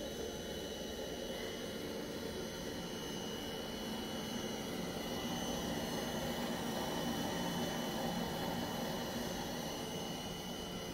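Sunnen valve-guide machine's spindle running steadily as a fluted cutter feeds into a valve-guide bore in a cast iron cylinder head, a little louder in the middle of the cut.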